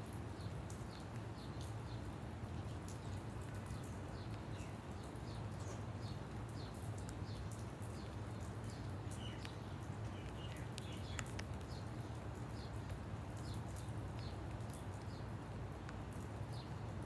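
Small birds chirping in short, repeated calls over a steady low hum.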